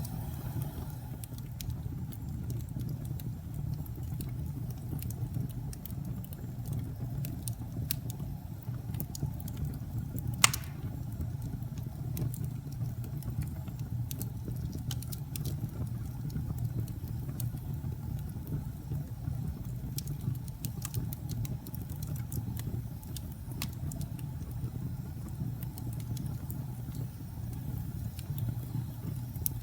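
Logs burning in a fireplace: a steady low rumble of the flames with scattered sharp crackles, and one loud pop about ten seconds in.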